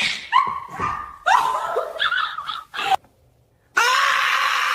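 A string of short, gliding animal yowls and cries, then a brief silence, and near the end a long drawn-out rooster crow begins.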